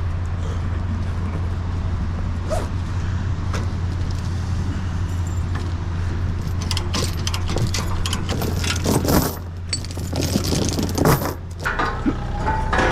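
An engine idles steadily while loose metal clinks, jingles and clanks over the second half, as a mini excavator is being unloaded from its trailer. The engine hum fades away shortly before the end.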